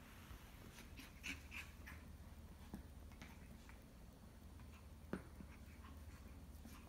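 Faint sounds of a Shih Tzu puppy at play: scattered light clicks and scuffles, with a sharper tick a little after five seconds, over a low steady room hum.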